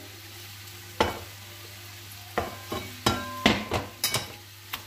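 Pizza dough being mixed by spoon and hand in a mixing bowl: a string of sharp knocks and clinks of the spoon against the bowl, a few ringing briefly, about three seconds in. Under it a faint steady sizzle from a frying pan on the hob and a low hum.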